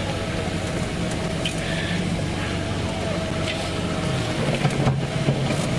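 Safari vehicle's engine running steadily with a low hum.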